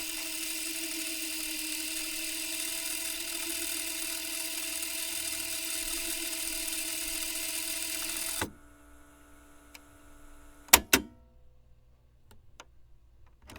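Tape machine rewinding: a steady motor whir that cuts off suddenly after about eight and a half seconds, followed about two seconds later by two sharp mechanical clicks in quick succession.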